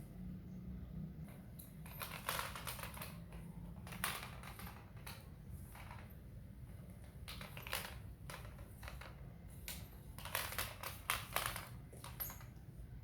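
Kittens pawing and batting a plastic air-conditioner remote: light clicks and rattles in several short flurries.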